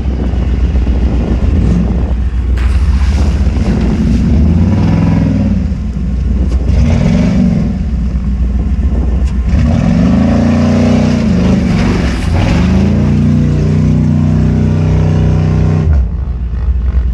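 Off-road truck engine revving hard, its pitch climbing and falling several times, then held high before dropping off suddenly near the end. The revs flare without the truck pulling, which onlookers take for a badly slipping automatic transmission.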